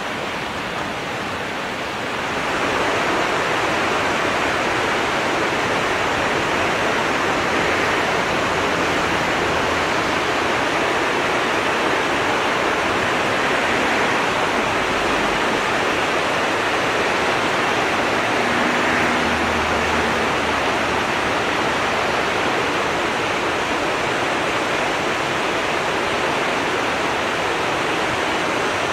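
Nagara River water rushing steadily over shallows, a little louder from about two seconds in.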